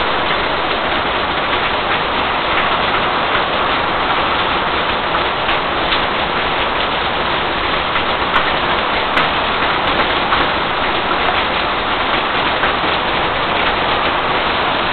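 Heavy thunderstorm rain pouring down steadily, a dense even hiss.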